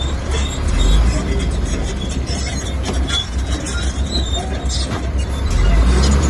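Bulldozer diesel engine running under load with a low rumble, its steel tracks clanking and squealing.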